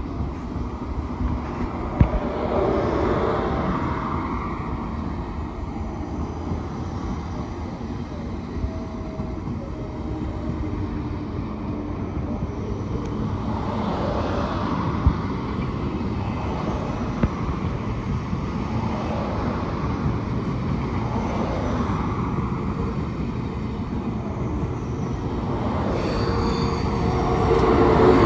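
Deutsche Bahn ICE high-speed train pulling out of a station platform, rolling past with a steady rumble and a few sharp clicks. The sound swells near the end.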